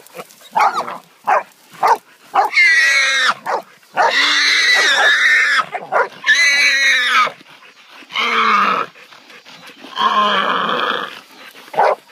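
Feral hog squealing in about five long, loud screams while catch dogs hold it by the head and it is being stuck with a knife, after a quick run of short sharp cries in the first two seconds.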